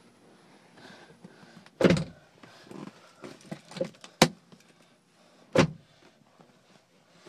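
Handling noise inside a car: a few dull thumps, about two seconds in and again near six seconds, and a sharp click about four seconds in, with lighter knocks and rubbing in between.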